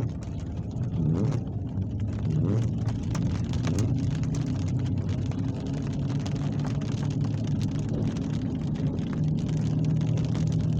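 Rain falling during a severe thunderstorm, with many individual drops ticking on a hard surface, over a steady low hum.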